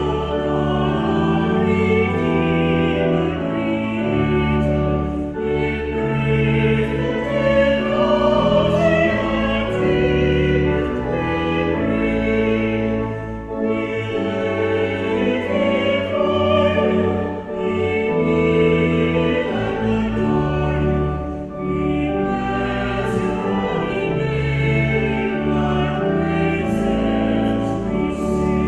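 A small choir of four voices singing a hymn in slow, held notes, accompanied by a pipe organ.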